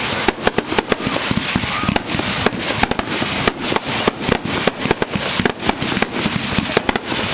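Several Mammoth Strobe 500-gram fireworks cakes firing at once: a dense, irregular barrage of sharp shots and bursting pops, several a second, over a continuous hiss.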